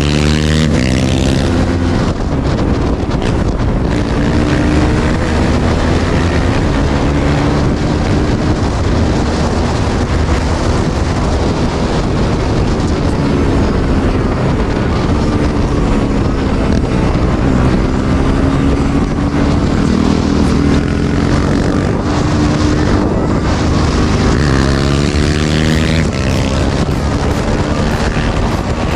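Motorcycle engine running hard at speed, its pitch falling about two seconds in, dipping and climbing again around the middle, and rising as it revs up near the end.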